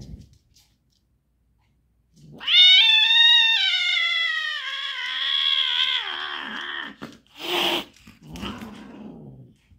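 Female tortoiseshell cat yowling while being mated: one long, loud caterwaul of about four seconds, falling in pitch and breaking into a rough growl near its end. A short burst of noise and a lower growl follow.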